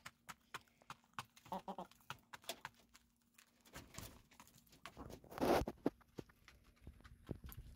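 Three hens pecking feed from a tray: a quick, irregular tapping of beaks. There is a short cluck a little under two seconds in and a brief louder rustle about five and a half seconds in.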